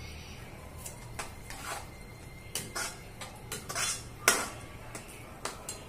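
Metal slotted spatula scraping and knocking against a wok while stirring a sauce: a string of short scrapes and clicks, with the loudest knock about four seconds in.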